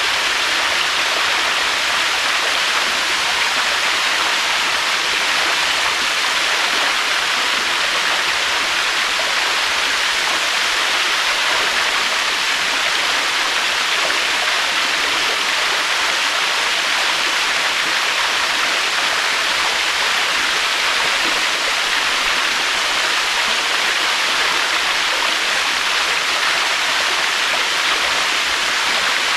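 Waterfall: steady rushing, splashing water with an even hiss that never rises or falls.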